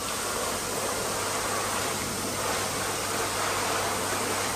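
Automatic hand dryer blowing: a steady rush of air that switches on abruptly at the start.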